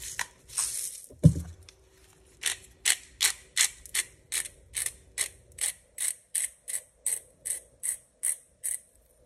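Salt and pepper twist grinders being turned over a bowl: a steady run of sharp ratchet clicks, about three a second, with a single dull thump about a second in.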